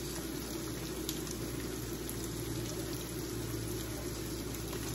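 Steak frying in a hot pan: a steady sizzle with fine crackling throughout.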